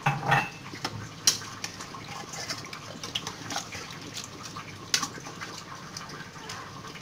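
Metal spoon stirring a thick stew of tripe and chickpeas in tomato sauce in an enamel pot, with a few sharp clinks of the spoon against the pot over a steady hiss.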